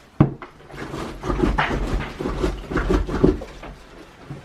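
A sharp knock, then a busy run of clattering knocks and scraping from the parts of an old, rusted stair lift as it is worked loose.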